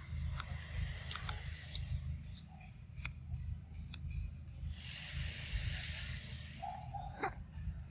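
Young macaque eating soft papaya: scattered wet clicks and smacks of biting and chewing. A steady hiss comes in about five seconds in and stops shortly before the end, and a short squeak sounds near the end.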